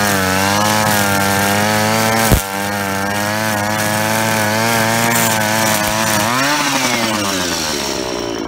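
A 25cc two-stroke string trimmer running at high speed, its head cutting grass, with one sharp knock a little over two seconds in. Past six seconds the throttle comes off and the engine note falls.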